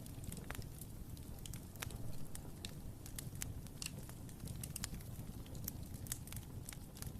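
Wood fire crackling in a fireplace: frequent small irregular pops and snaps over a soft low rumble of the flames.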